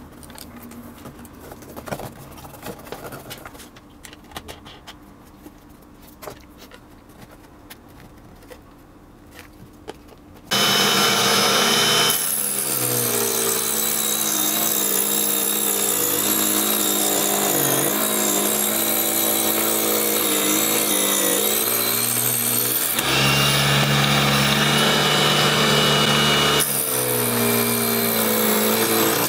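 Faint handling clicks for about ten seconds, then the DC 775 motor of a homemade mini table saw switches on suddenly and runs loud and steady, driving its small circular blade through a timing belt. Its pitch sags for long stretches as the blade cuts wood and rises back in between when the blade runs free.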